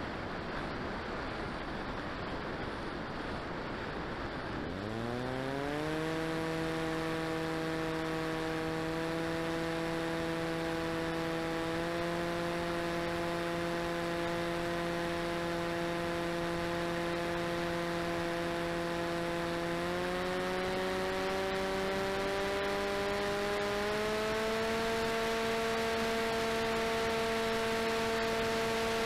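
Rushing wind noise, then about five seconds in the RCTimer 5010 630KV brushless outrunner motor and propeller of an FPV delta wing spin up with a sharply rising whine. The motor then holds a steady whine that steps up in pitch three more times as the throttle is raised.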